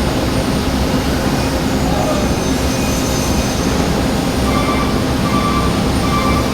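Steady, loud machine noise with a low hum. About two-thirds of the way through, a short higher tone starts repeating, a little under once a second.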